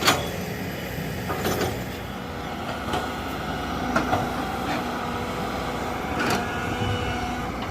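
Excavators at work: diesel engines running steadily, with a sharp metallic clank about every second or two.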